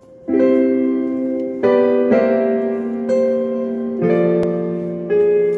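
Piano playing a slow introduction: a series of chords, each struck and left to ring and fade, about one a second.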